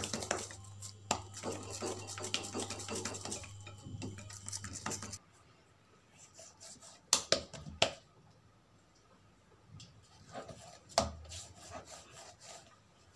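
Hands kneading parotha dough in a glass bowl: dense rubbing with small clicks against the glass, over a low steady hum. About five seconds in this cuts off abruptly, giving way to quieter rubbing as a dough ball is shaped on a wooden board, with a few sharp taps.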